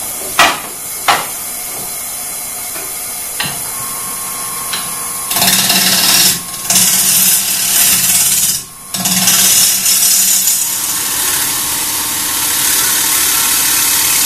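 Two sharp knocks near the start, then from about five seconds in a turning tool cutting into a spinning raw wood blank on a wood lathe: a loud, even shaving hiss, broken twice by brief pauses as the tool is lifted off.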